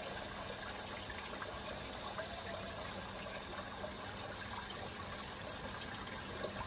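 A thin stream of water from an outboard motor's leg trickles and splashes steadily into a tub of water.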